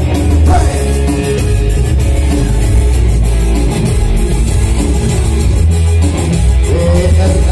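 Loud dance music played live on an arranger keyboard, with a steady drum beat and heavy bass.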